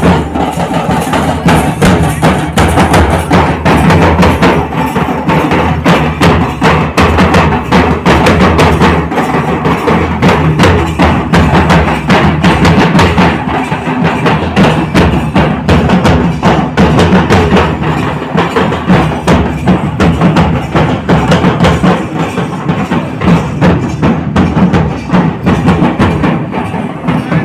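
Several large double-headed drums beaten with sticks, playing a fast, unbroken rhythm for a Munda traditional dance.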